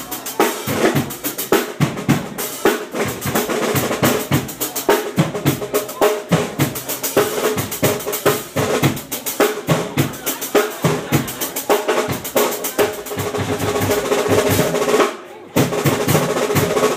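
Live drum solo on a drum kit: fast, dense strokes on snare and bass drum, with rolls. The playing breaks off briefly about fifteen seconds in, then resumes.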